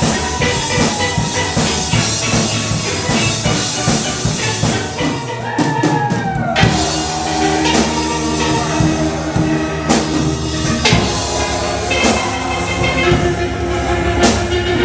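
Steel drum band playing fast, upbeat music, steel pans ringing over a steady drum beat.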